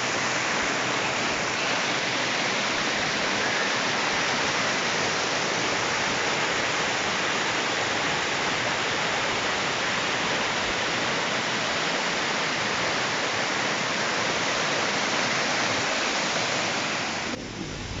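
Waterfall and the rocky cascades below it, water rushing steadily with an even hiss; the level dips for a moment near the end.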